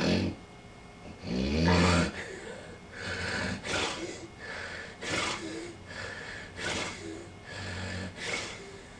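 A person snoring: a series of snores, the loudest about a second and a half in, then shorter snoring breaths about every half second.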